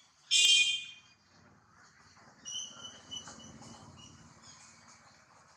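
Infant macaque giving one short, loud, high-pitched squeal about half a second in, followed a couple of seconds later by fainter high, thin chirps.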